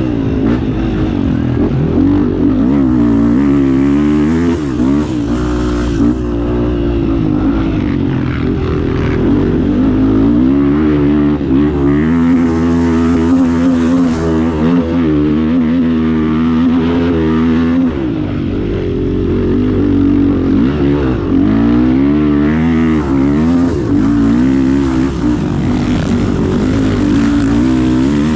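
Several off-road trail motorcycle engines revving up and down together, over and over, in a loud continuous din, as bikes struggle along a jammed trail.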